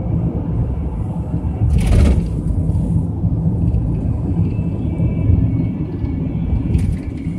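Inside a highway coach: steady low rumble of the engine and road, with a brief hiss about two seconds in.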